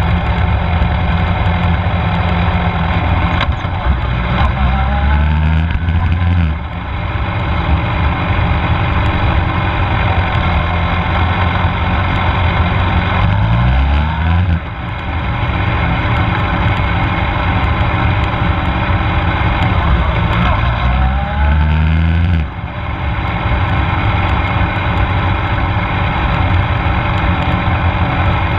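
Onboard sound of a middleweight sport bike's engine running at low speed, its revs rising three times over a second or two and falling away each time the throttle closes.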